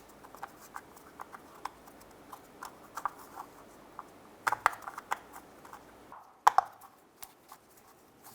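Light irregular clicks and taps of small parts being handled, with a few sharper knocks about halfway through and again a little later, as a plastic cap is fitted onto a rear wheel hub.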